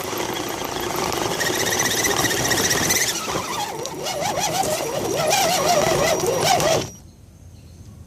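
Axial SCX10 RC crawler's electric motor and gear drivetrain whining as it drives, the pitch wavering up and down with the throttle, then stopping abruptly about seven seconds in.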